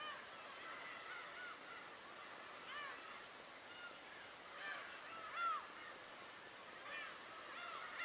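A flock of gulls calling: many short, arched calls overlapping one another, with one louder call about five and a half seconds in.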